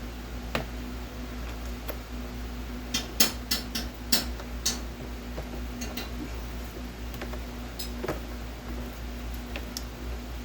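Small metal hand tools clicking and clinking as they are handled and picked through, with a quick run of sharp clicks about three to four seconds in and a few single clicks elsewhere, over a steady low hum.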